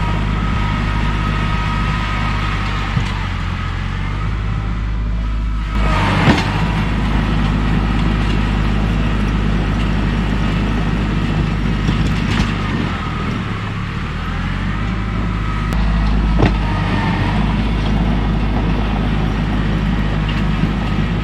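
Kubota L3301 compact tractor's three-cylinder diesel running steadily while plowing snow, with a few brief knocks and a dip and recovery in engine speed about two-thirds of the way through.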